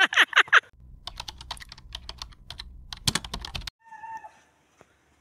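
A short laugh. Then about three seconds of snow crunching underfoot in quick, irregular, crisp clicks over a low rumble. Near the end comes a short pitched bird call.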